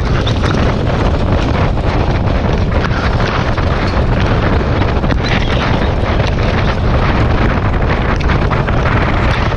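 Heavy wind buffeting the microphone of a sulky-mounted camera in a harness race at speed: a loud, steady low rumble with scattered sharp clicks and rattles.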